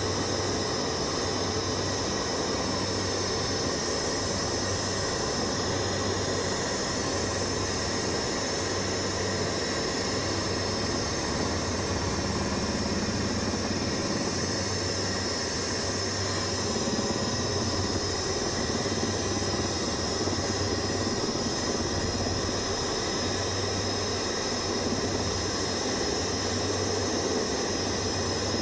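Helicopter cabin noise in flight: a steady engine whine over a rotor drone, with a low throb that swells and fades at an even, slow rhythm.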